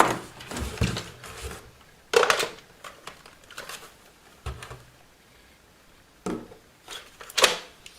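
Hard plastic parts of a Samsung Jet 60 stick vacuum's charging mount and charger being handled and fitted together: a series of clicks, knocks and rattles, a second or two apart.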